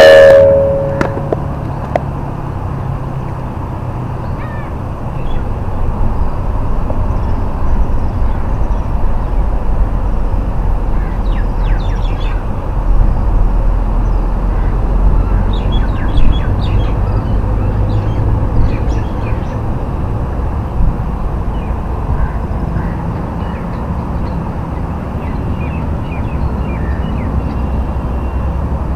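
A short, loud pitched call right at the start, then faint, scattered bird chirps over a steady low rumble.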